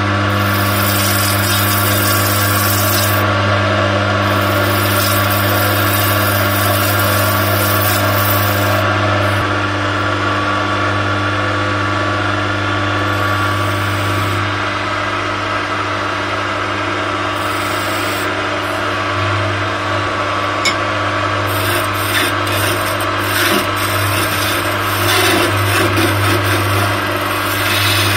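A wood lathe motor hums steadily while turning chisels cut a spinning linden (lime wood) blank, the shavings coming off with a hissing scrape. The cutting runs in long passes at first, eases off for a stretch in the middle, and comes back as short repeated strokes near the end.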